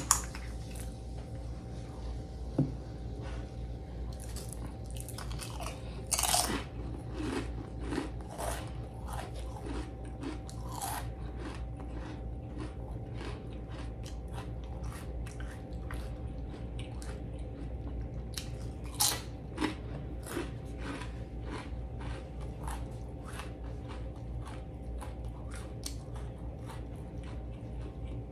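Close-miked crunching and chewing of Flamin' Hot sour cream and onion potato chips: scattered crackles, with sharper bursts of crunching about six seconds in and again near nineteen seconds.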